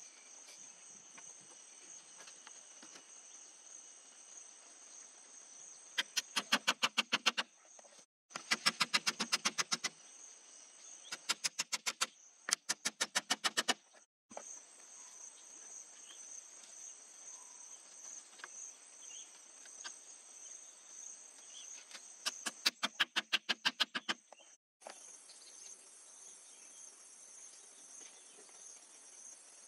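Several short bursts of rapid, loud strikes, about six a second, from a small hatchet hacking at bamboo and wooden poles. A steady high insect drone runs underneath.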